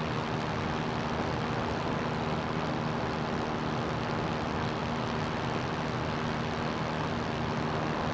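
CGS Hawk ultralight's engine and propeller running steadily in flight: a constant drone with an even rushing noise over it.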